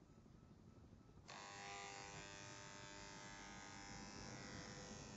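Corded electric hair clippers buzzing steadily as they cut hair close to the scalp. The buzz starts abruptly about a second in.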